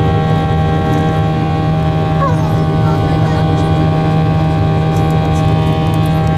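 Boeing 737 jet engines heard from inside the passenger cabin during the climb after takeoff: a loud, steady drone with a strong low hum and many steady whining tones above it.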